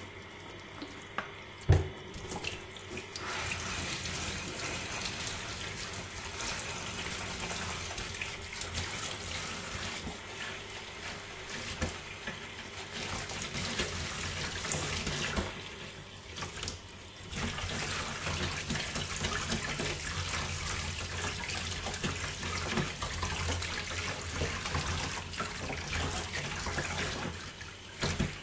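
Water running from a tap while an object is scrubbed and handled under it. There is a sharp knock about two seconds in, and the flow eases off briefly a little past the middle before resuming.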